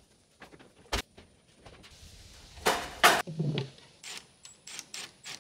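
Handling noises from a caged plastic IBC water tote being pushed onto a wooden stand: a sharp knock about a second in, a loud scrape around the middle with a short low rumble at its end, then a run of light clicks and taps near the end.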